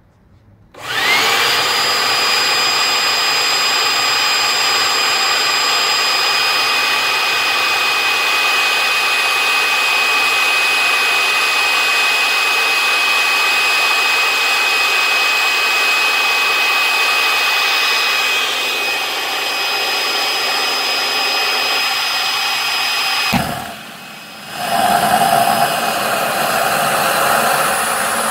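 Homemade turbojet engine starting up: a loud whine spins up sharply about a second in and holds steady with high whistling tones. Near the end it drops away for about a second, then comes back with more rushing noise.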